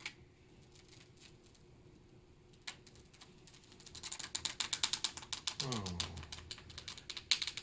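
A ratcheting mechanism clicking rapidly, many clicks a second, starting about four seconds in after two single clicks. A brief sound falling in pitch comes near six seconds in.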